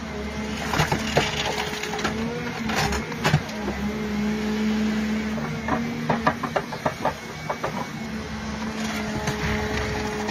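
Hydraulic stump shear cutting into a tree stump: sharp cracks and snaps of splitting wood and roots, about a second in, near three seconds and in a quick run between six and eight seconds, over the steady drone of the carrier machine's engine.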